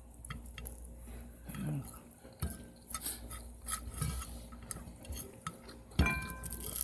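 Quiet scattered clicks and taps of someone eating by hand from a plate. About six seconds in, a sharper clink of crockery rings briefly.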